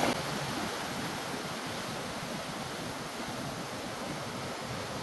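Floodwater rushing down a creek swollen by heavy rain: a steady, even rush of water.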